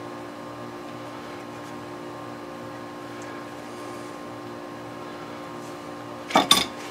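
Two sharp clatters close together near the end as an adjustable wrench is picked up off a cluttered workbench, over a steady background hum.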